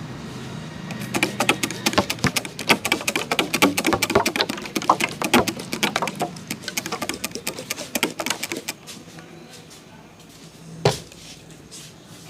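Rapid percussive massage strokes, the barber's hands tapping and slapping in quick succession at about eight strikes a second, then stopping; a couple of seconds later comes a single sharp crack.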